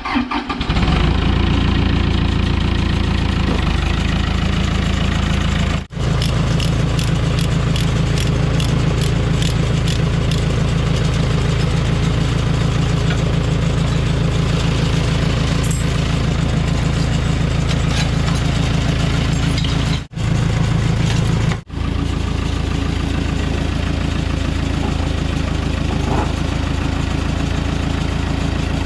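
Case 450C crawler dozer's diesel engine starting and then running steadily. The sound breaks off briefly three times.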